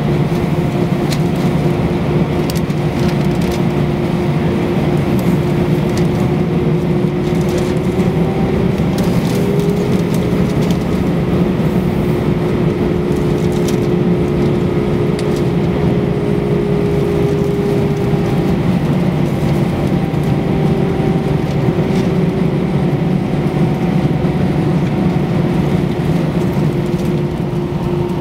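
Airbus A320's IAE V2500 turbofan engines running at taxi power, heard inside the cabin: a steady hum with a whine holding one pitch.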